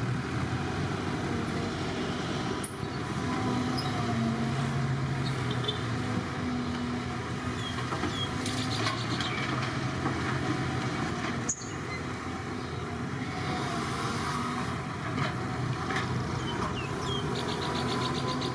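Excavator's diesel engine running steadily under work, its pitch shifting a little, with a few faint high chirps on top.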